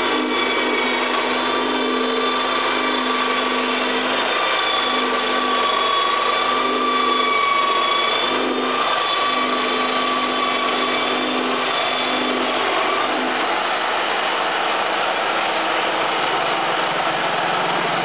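Portable sawmill's small engine running under load as the saw cuts through a stack of oriented strand board sheets, with a steady whine. About thirteen seconds in the whine of the cut dies away and the engine runs on.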